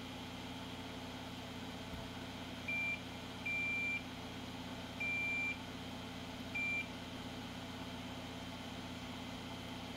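Digital multimeter in continuity mode beeping four times, the middle two beeps longer, as its probes bridge points on a circuit board: each beep signals an unbroken trace. A steady low hum runs beneath.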